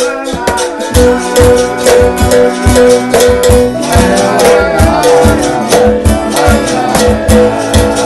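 Berimbaus struck with a stick and shaken caxixi rattles over a strummed acoustic guitar and a cajon, playing together in a steady rhythm. The cajon's low bass strokes come in about a second in.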